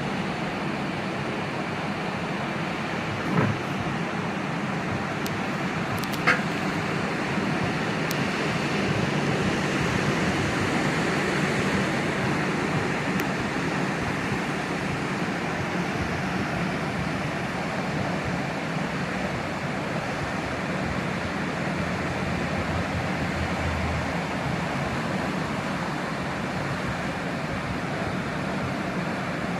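Sea surf washing on the shore as a steady rushing noise, swelling about ten seconds in, with two short sharp clicks in the first few seconds.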